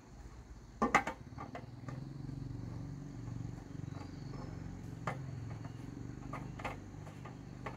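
A small engine running steadily, with a sharp knock about a second in and a few lighter clicks over it.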